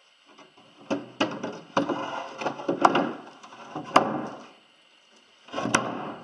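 Varnished oak lid panels being set back in place on a boat's compartments: a series of sharp wooden knocks with rubbing and scraping between them, a short pause, then another clatter near the end.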